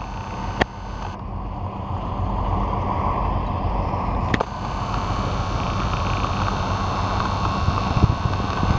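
Railway train noise: a steady low engine hum under a rushing noise, with two sharp clicks, about half a second in and about four and a half seconds in.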